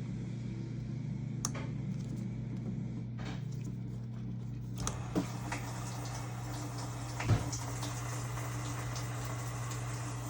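Water running through a washing machine's water inlet valve, opened with a magnet, with a hiss that grows about five seconds in over a steady low hum. A few clicks and a sharp knock come about seven seconds in.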